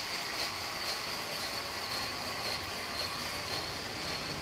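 Sawmill machinery running steadily: a continuous mechanical noise with a thin, steady high whine running through it.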